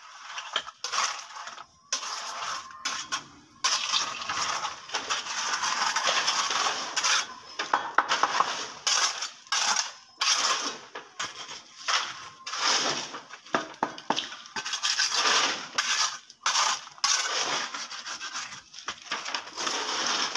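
Mason's trowel scraping and spreading wet gravel concrete on a slab, in irregular gritty strokes that start and stop.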